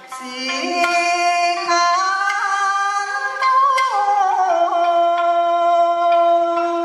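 Background music: a singer holding long drawn-out notes, with a wavering, bending passage of the voice about halfway through.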